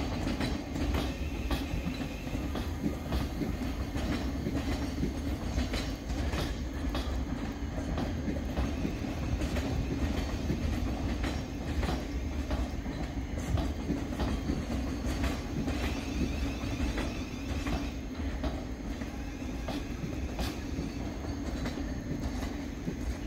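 Thameslink Class 700 electric multiple unit moving slowly over the station pointwork: a steady low rumble with irregular clicks as its wheels cross rail joints and crossings.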